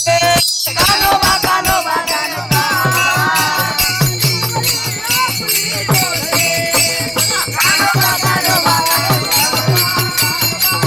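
Varkari bhajan music: a woman singing a gavlan over rapidly clashing hand cymbals (taal) and a steady drum beat. There is a brief dropout about half a second in.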